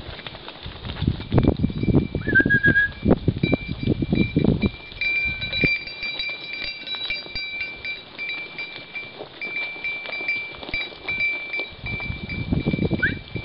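A herd of goats runs past over dry ground, their hooves thudding in two bouts. Between the bouts comes high, steady ringing.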